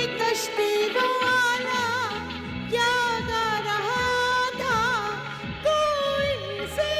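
Bollywood film-song music: a single melody line of held, bending notes over a steady rhythmic backing.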